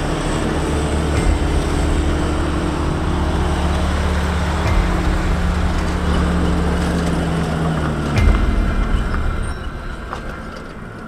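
A vehicle engine running steadily, then cutting off about eight seconds in with a thump.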